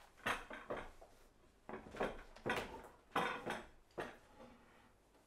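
A flip chart easel being moved into place and handled: a series of short rustles of its large paper pad and knocks and rattles of its frame.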